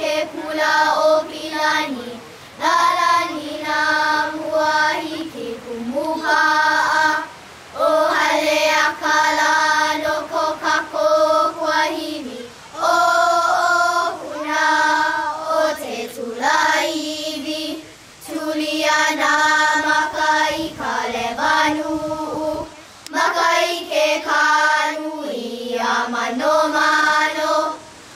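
Children singing a melody together, in sung phrases with short breaks between lines.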